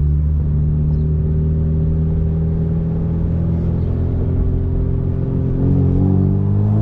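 Turbocharged 2.0-litre four-cylinder engine of a 2013 Hyundai Genesis Coupe 2.0T with nearly full bolt-on modifications, heard loud inside the cabin while driving. The engine note holds steady at low revs, then begins to rise near the end as the car accelerates.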